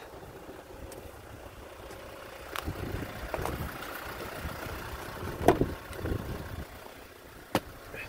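Strong wind buffeting the microphone in a snowstorm, a low rumble with a few sharp knocks, the loudest about five and a half seconds in.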